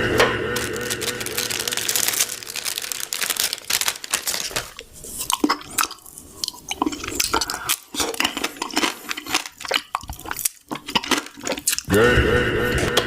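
Bag of Lay's potato chips crinkling and chips crunching between the teeth, in a run of dense crackles. A loud sustained pitched sound cuts in at the very start and again about 12 seconds in.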